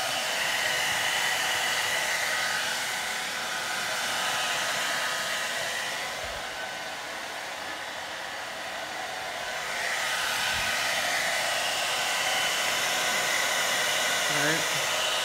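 Hand-held Remington hair dryer blowing steadily as it heats carbon-fibre vinyl wrap to soften it. The rush of air and motor drops slightly for a few seconds in the middle, then comes back up.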